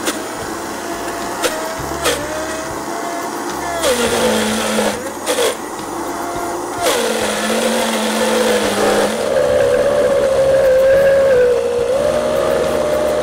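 Countertop blender motor running under heavy load, churning frozen peaches into a thick ice-cream purée. Its pitch drops and recovers several times as the stiff frozen mixture bogs the blades down, with a few sharp knocks along the way.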